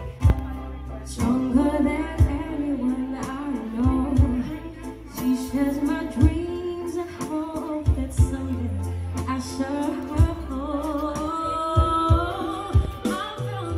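Live acoustic band: a woman singing a slow melody with acoustic guitar and violin, over sustained low bass notes.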